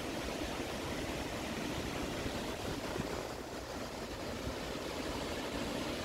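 Steady rushing noise of a very tall waterfall, water dropping about 144 m onto rock, without a break or change.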